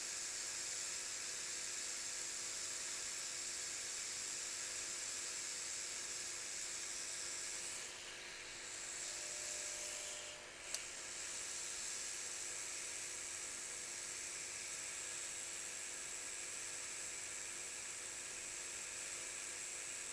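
Hot-air nozzle of a Blackjack BK6000 rework station blowing a steady hiss of hot air onto iPhone logic-board pads, reflowing fresh leaded solder into small bumps. The hiss dips briefly twice around the middle, with a single faint click just after the second dip.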